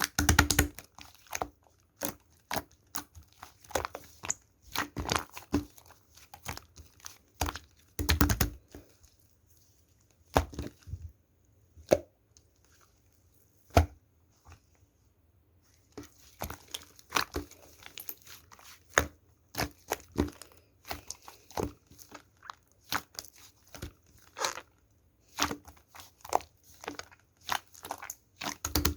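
Slime being squished and pressed by hand, making irregular sharp clicks and pops. The clicking thins out to a few isolated pops for several seconds in the middle, then picks up again.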